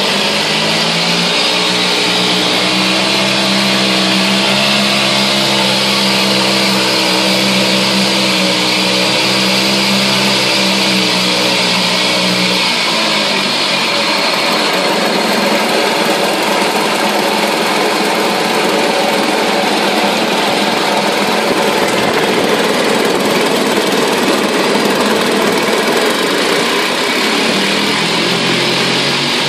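Mariner 2 hp two-stroke outboard running in a test tank, its propeller churning the water. It runs steadily at low speed, is throttled up about 13 seconds in and runs faster, and eases back near the end.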